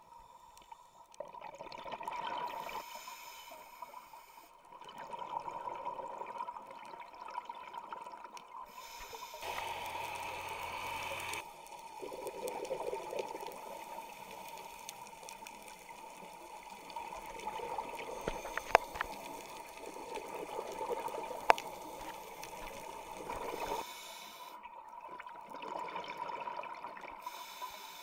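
Scuba regulator heard underwater: bursts of exhaled bubbles gurgling every few seconds, with quieter gaps between breaths, over a steady faint tone. Two sharp clicks come in the second half.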